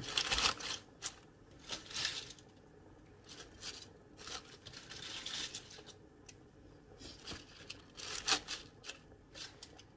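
Chopped raw cabbage leaves rustling as hands press and pack them down into a cooker pot, in irregular bursts, loudest just after the start and again about eight seconds in.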